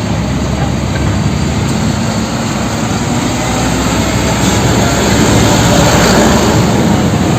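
Tanker truck driving: a loud, steady rush of engine and road noise that swells slowly over the first six seconds.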